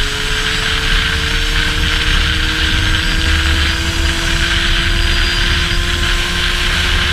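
Rieju MRT SM supermoto's engine pulling at high revs on the move, its note climbing slowly and steadily, over a loud low rumble.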